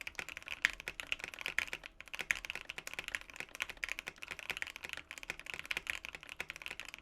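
Fast typing on a mechanical keyboard: a quick run of key clacks, several a second, with only brief pauses.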